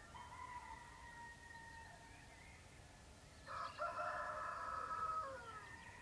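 A rooster crows once, about three and a half seconds in, a loud call of nearly two seconds that drops in pitch at the end. Fainter, drawn-out calls sound in the first two seconds.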